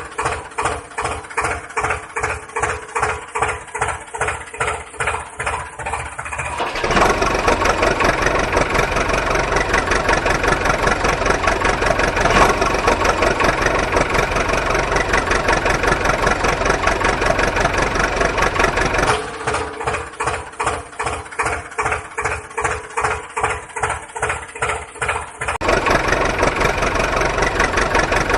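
An engine chugging slowly in even beats, about two to three a second. After about six seconds it changes to running harder and louder. Near the end it drops back to the slow chug, then picks up again.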